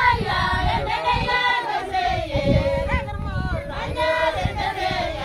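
A group of Maasai women singing a traditional song together, with long held notes.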